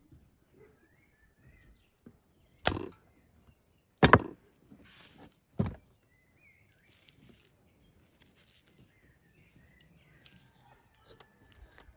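Big kitchen knife chopping through raw meat onto a wooden chopping board: three sharp chops about a second and a half apart, then faint cutting and handling sounds.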